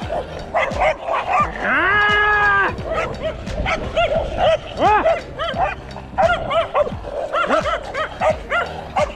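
Dogs barking rapidly and repeatedly as they chase a bicycle, many short barks in quick succession, with one longer drawn-out cry about two seconds in.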